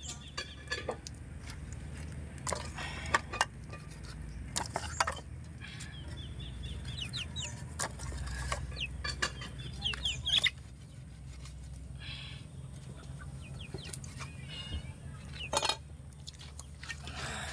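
Chickens clucking on and off, with short high calls clustered in the middle and again near the end. Scattered sharp knocks and scrapes of a fish being cleaned with a bolo knife come over them.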